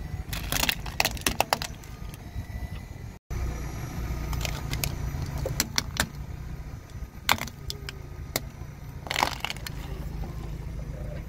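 A car tyre rolling slowly over plastic toys on asphalt: the car's steady low rumble under clusters of sharp cracking and snapping as the plastic breaks under the wheel. There is a brief dropout a little over three seconds in, and the cracking comes back in several bursts after it.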